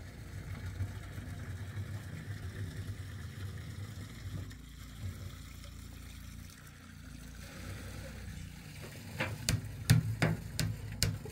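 A low steady rumble, then near the end a quick series of sharp strikes, about three a second: a shovel chopping and scraping into packed dirt.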